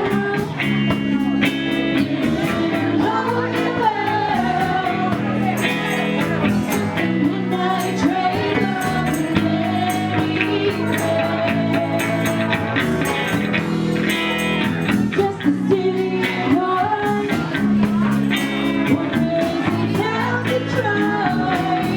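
Rock band playing, with a singer over guitar, bass and a steady drum beat.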